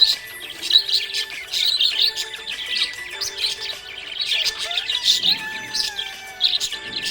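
Budgerigars chirping and twittering in rapid, dense bursts, over soft background music with long held notes.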